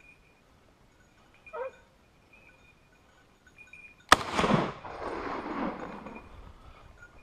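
A single hunting rifle shot about four seconds in: a sharp crack followed by a long rolling echo off the surrounding hills that fades over about two seconds.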